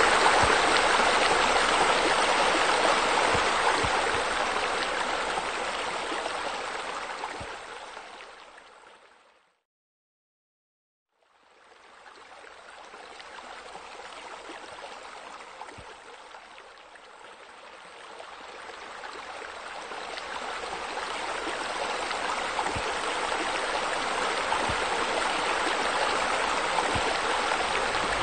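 Steady rush of water spilling from a pool waterfall and splashing into the pool. It fades out to silence about a third of the way through, then fades back in quietly and gradually builds up again.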